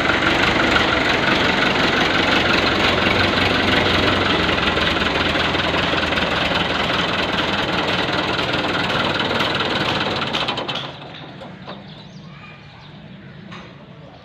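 Fiat 640 tractor's diesel engine running loudly and steadily, then dropping sharply to a much quieter level about eleven seconds in.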